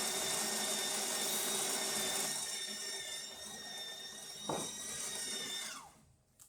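The built-in burr grinder of a DeLonghi Specialista Arte espresso machine grinding beans: a steady motor whine that cuts off about six seconds in.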